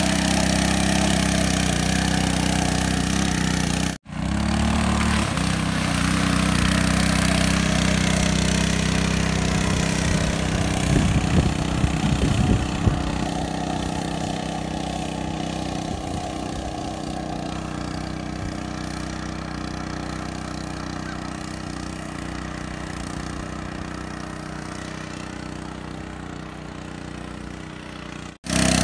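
A KT196 go-kart's 196cc single-cylinder engine runs steadily as the kart churns through shallow muddy water, with a stretch of uneven, louder splashing a little before the middle. The engine then fades as the kart moves off. The sound drops out briefly twice, about four seconds in and just before the end.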